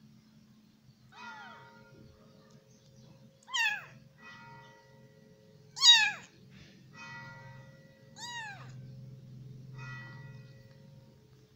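Weeks-old orange-and-white kitten meowing four times, each a high call that falls in pitch; the third, about six seconds in, is the loudest.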